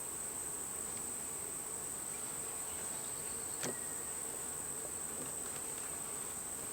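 Honey bees buzzing around an open hive, over a steady high-pitched insect trill. One sharp click a little past halfway.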